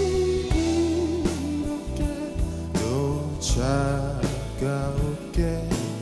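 A male singer sings a slow Korean ballad over a live band with guitar, bass and drums; his voice stands out more from about halfway through.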